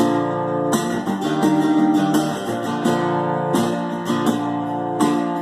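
Acoustic guitar playing an instrumental passage between sung verses, strummed in a steady rhythm.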